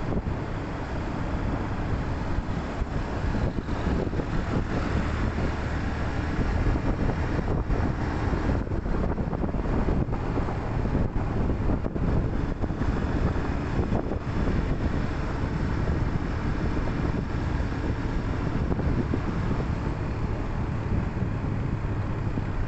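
Steady road and wind noise from a vehicle driving along a road, with low engine and tyre sound beneath.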